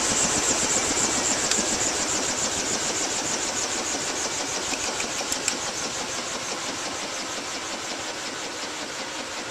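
Small gas turbine engine, a Harrier jet's starter/APU design, running with a high whine over a rushing exhaust noise. The whine fades and the whole sound drops steadily as the turbine winds down, with a couple of faint ticks along the way.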